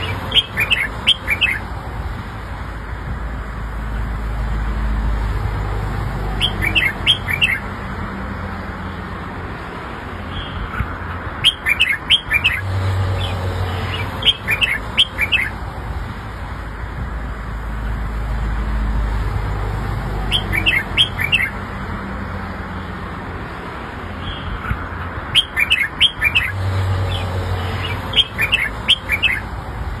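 Red-whiskered bulbul singing short bursts of quick, chirpy whistled notes, a phrase every few seconds, over a steady low background rumble.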